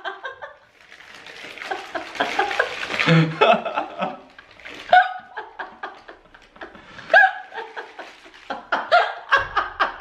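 A woman laughing in a run of short bursts, broken by pauses.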